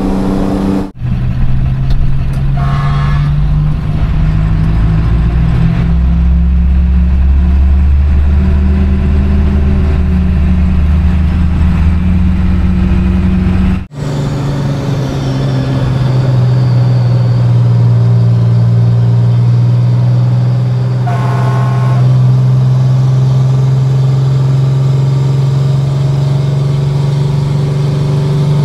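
Pierce ladder fire truck's diesel engine running steadily under way, heard first from the cab and then from outside beside the wheels with tyre noise on the road. The sound breaks off sharply twice, and two brief higher tones come in, one near the start and one about two-thirds through.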